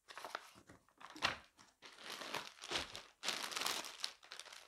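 Packaging crinkling and rustling as it is handled and unwrapped, in irregular bursts, loudest a little past three seconds in.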